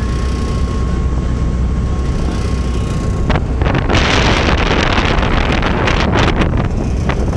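A boat under way: a steady low rumble of the engine and wind on the microphone, with a thin steady whine for the first three seconds. About three seconds in this gives way to a louder rushing hiss of wake water and wind, which eases near the end.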